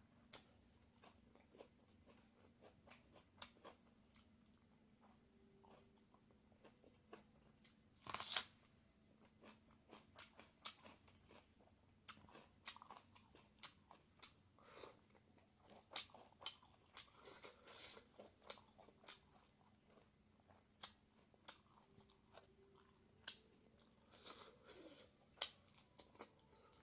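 Close-miked chewing of pork and bamboo shoots: irregular soft mouth clicks and crunches, with a louder crunch about eight seconds in and busier bursts of chewing later on.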